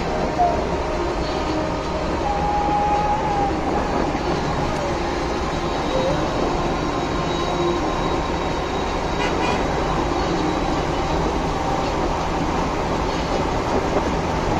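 Steady tyre and wind noise inside a car's cabin while driving at highway speed.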